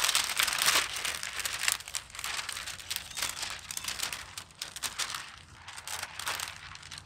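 Window tint film and its clear plastic backing crinkling and crackling as a long strip of it is handled and flexed against a windshield, loudest in the first couple of seconds.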